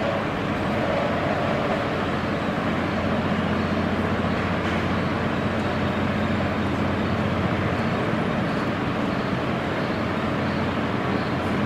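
Steady, even rushing noise with a faint low hum underneath, unchanging in level.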